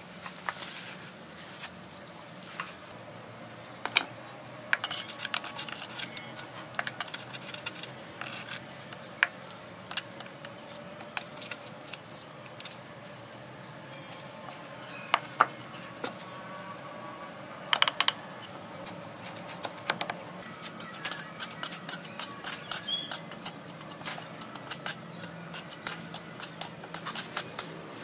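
Bricks being laid in wet cement mortar by hand: short scrapes, taps and knocks of brick, mortar and the metal mortar pan, coming thicker near the end.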